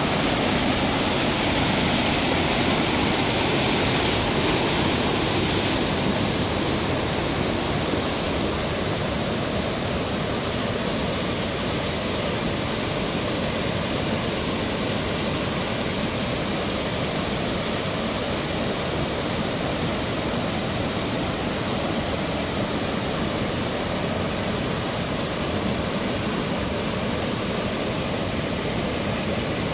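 Small mountain waterfall cascading over rocks into a pool, a steady rushing of water that is a little louder and brighter at first and settles slightly lower after about six seconds.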